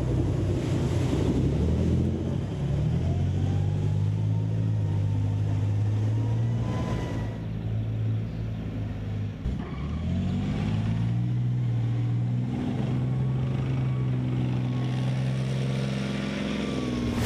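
Leopard 2 tank's V12 diesel engine running under load as the tank drives, its note climbing as it revs about three seconds in and again about ten seconds in.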